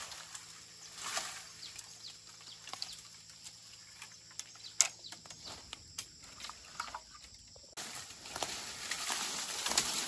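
Bamboo stalks and their leafy tops rustling, swishing and knocking together as long cut bamboo poles are pulled and handled, with a run of sharp cracks and clicks in the middle, one loud crack about five seconds in, and a louder rush of leaf rustling near the end.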